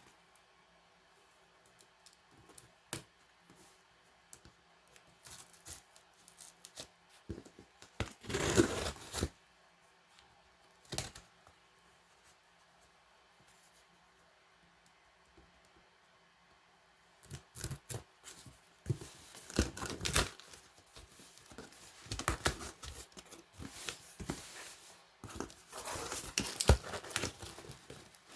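A shipping box being opened by hand: tape and packaging tearing and crinkling in short bursts, with a longer tear about eight seconds in, a lull in the middle, and almost continuous rustling and tearing over the last ten seconds.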